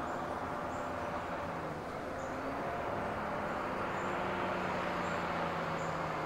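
A car engine running steadily, a low even hum with a faint rise in pitch in the second half.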